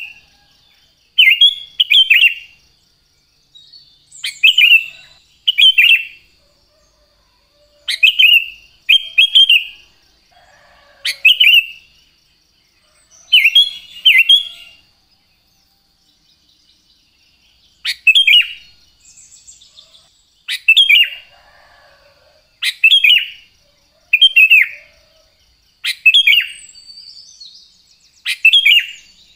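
Sooty-headed bulbul (kutilang) singing: short, loud whistled phrases, often in quick pairs, repeated every second or two.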